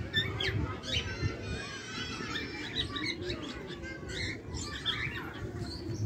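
A flock of cockatiels calling together: many overlapping short chirps and squawks, with a quick trill about a second in, over a low background rumble.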